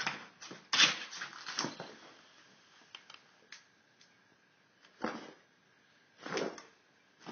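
Dog pouncing and scuffling after a spot of reflected light: a burst of scrabbling and bumps in the first two seconds, then two short noises about five and six and a half seconds in.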